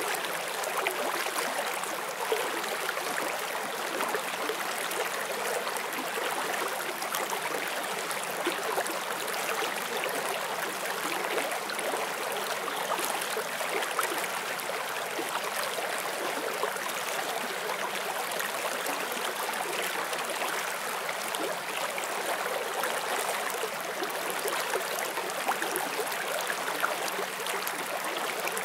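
Forest stream flowing over rocks: a steady, even rush of water with fine bubbling and trickling detail.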